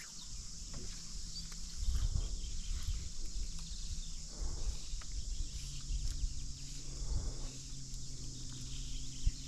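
A steady, high-pitched insect chorus, with irregular low rumbles and knocks now and then.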